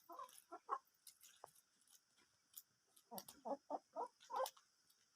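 Chickens clucking: a few short clucks at the start, then a quicker run of clucks a little past halfway, with faint clicks between.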